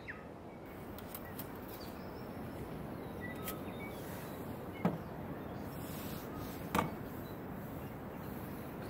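Steady hiss of a Jetboil gas camp stove burning, with two sharp metallic knocks about five and seven seconds in and a few faint high chirps.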